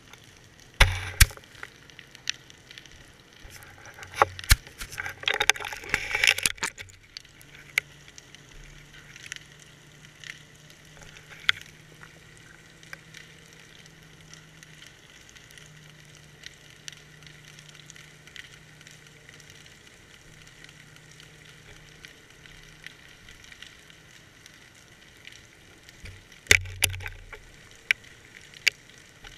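Muffled underwater sound picked up by a GoPro in its waterproof housing on a fishing line: scattered sharp clicks and knocks, a burst of crackling a few seconds in, and another cluster of knocks near the end, with a faint steady low hum through the middle.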